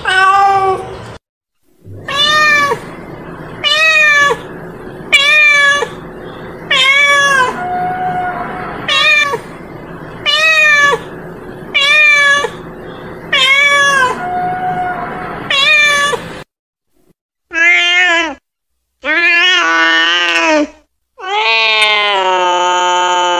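Domestic cat meowing over and over, about a dozen short calls roughly a second apart, each rising then falling in pitch. After a short pause come three longer, drawn-out, wavering calls. This is the call of a female cat calling for a mate.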